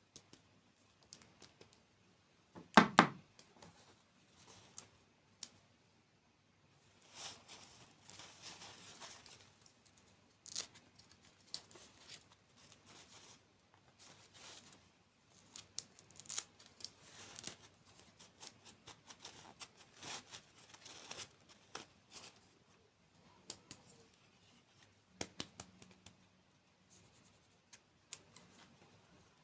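Close-up crinkling and tearing of candy and dessert packaging, with scattered sharp clicks and crackles. One loud bump comes about three seconds in.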